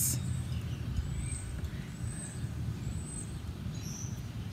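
Low steady background rumble, with a few faint high chirps near the end.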